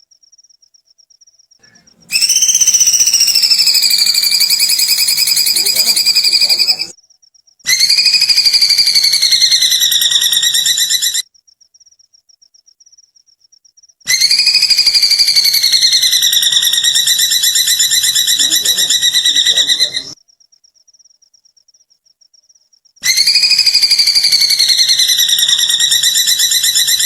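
A bird's long, rapidly trilled call, given four times with pauses between: each call jumps up in pitch at the start, eases down and holds level for several seconds. It is the giggling call likened to a kuntilanak's laugh. A faint, steady high-pitched trill, like an insect, runs in the gaps between calls.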